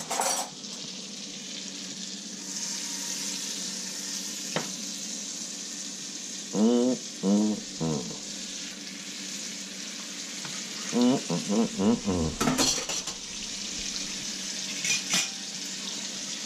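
Venison steak frying in olive oil and butter in a cast-iron skillet, a steady sizzling hiss, with a few sharp metal clinks of utensils against the pan or dishes.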